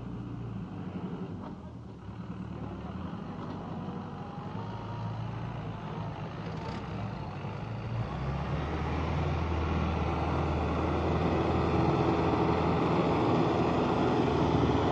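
Rubber-track crawler tractor's engine running steadily under load as it pulls a plough through the field, growing louder from about halfway through as it comes close.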